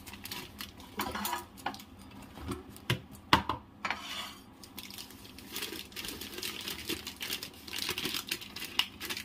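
Plastic pouch of dessert-mix powder crinkling and rustling as it is handled and its contents poured out onto a plate. There are many small clicks throughout, with a couple of sharper knocks about three seconds in.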